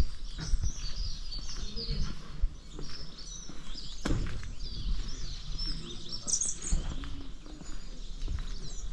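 Small songbirds chirping and singing over outdoor background noise, with soft low thuds of footsteps walking on the road.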